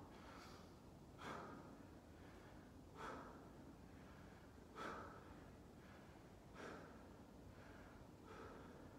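A person's faint breathing during a single-arm dumbbell row set: six short, sharp exhales about two seconds apart, one with each pull of the row.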